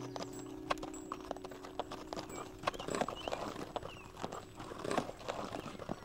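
Horse walking, its hooves clopping unevenly on a dirt track, while a held music chord dies away over the first couple of seconds.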